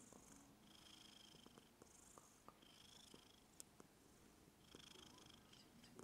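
Maine Coon cat purring softly while being scratched, with a faint breathy hiss in stretches about every two seconds and a few small clicks.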